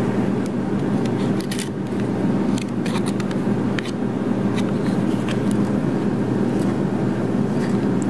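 A plastic spatula and a metal spoon scraping and clicking against a ceramic mug as peanut butter is stirred into mug-brownie batter, with scattered light clicks over a steady low hum.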